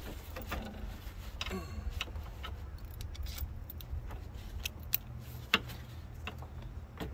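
Small metal clicks and rattles of a compression tester's gauge being coupled to the test hose threaded into a spark plug hole, with one sharp click about five and a half seconds in, over a steady low rumble.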